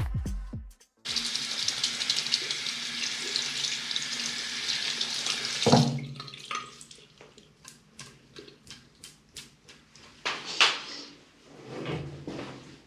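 A tap runs into a sink for about five seconds, then stops with a knock. A string of light clicks and taps follows, with a louder knock near the end.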